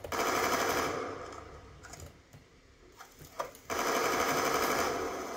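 Automatic rifle fire in a first-person shooter video game: a long burst for about the first two seconds, a short lull, then another sustained burst from just before four seconds in.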